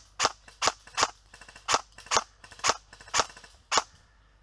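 Airsoft gun firing a string of single shots: about eight sharp pops at uneven intervals, stopping shortly before the end.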